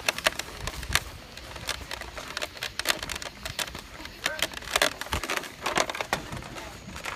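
Irregular sharp clicks and knocks, several close together at times, over a low background hiss.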